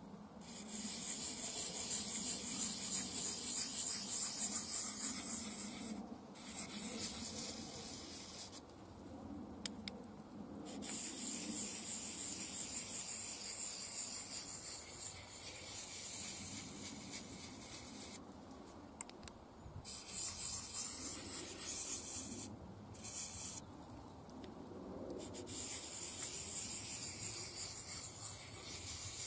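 Cold Steel SRK blade rubbed in circular strokes on the coarse diamond side of a Fallkniven DC3 stone during a touch-up sharpening, a steady high scraping hiss in long passes broken by a few short pauses.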